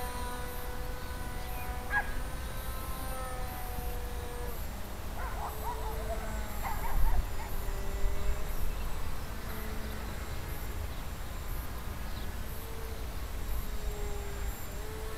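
Small electric RC model plane's motor and propeller whining overhead, the pitch shifting up and down as it flies past and changes throttle.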